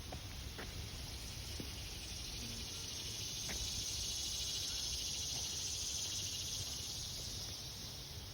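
Insects buzzing in the woods: a steady, high-pitched insect drone that swells louder in the middle for a few seconds, then eases off near the end, with a few faint clicks.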